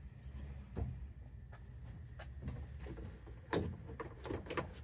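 Scattered light clicks and knocks of hands working the loose plastic trim at the top of a cargo van's rear door opening, bunching up about three and a half seconds in and again near the end, over a steady low hum.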